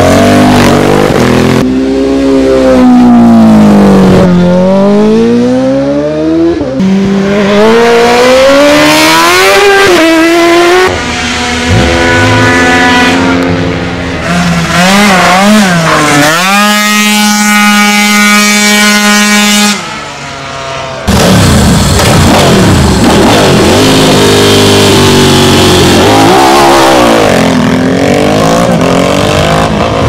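Racing motorcycles at full throttle on a hillclimb, engines revving up and dropping back through gear changes as they pass. Past the middle, a Piaggio Zip racing scooter's engine holds one steady high note for a few seconds, then cuts off abruptly and another bike revs hard.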